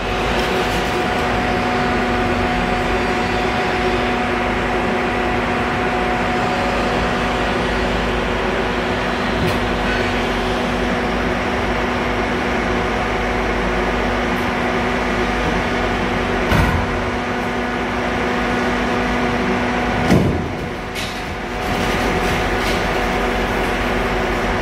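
Excavator's engine and hydraulics running steadily with a constant hum while its demolition crusher jaws bite into a concrete lintel. Two sharp cracks of breaking concrete come about two-thirds of the way in, some three and a half seconds apart, and just after the second the machine briefly runs quieter.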